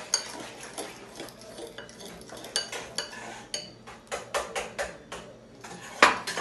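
A fork beating pizza dough in a bowl, its tines clinking against the bowl in quick, irregular strokes, with a run of fast strokes just after the middle and one loud clink near the end.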